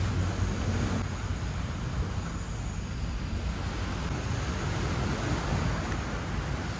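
Handheld butane torch burning steadily, a continuous rushing hiss, its flame playing on a melted HDPE plastic patch on the kayak hull. A low rumble under it eases off about a second and a half in.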